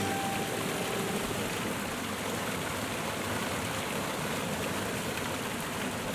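Steady rush of falling water from a waterfall, an even wash of noise with no pitch.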